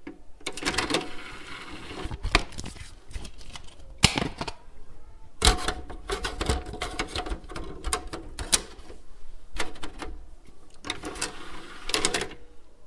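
A CD and its plastic case being handled: irregular plastic clicks and rattles, with sharper clicks about four and five and a half seconds in.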